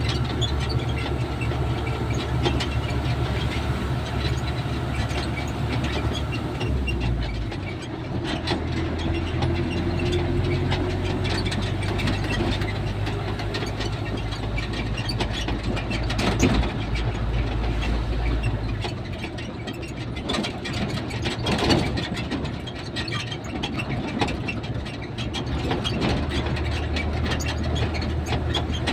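A vehicle engine running steadily with a low hum, along with rattles and knocks. The engine note changes about seven seconds in and again near nineteen seconds.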